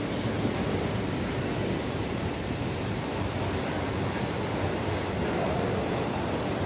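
Freight train of autorack cars rolling past at close range: a steady noise of steel wheels running on the rails and cars moving.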